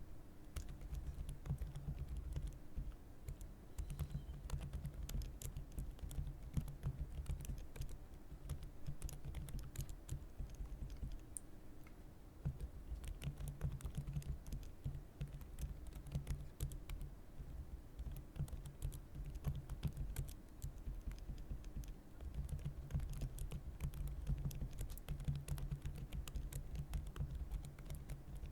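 Steady typing on a computer keyboard: a continuous stream of key clicks with a soft low thud under each stroke, easing off briefly about twelve and twenty-two seconds in.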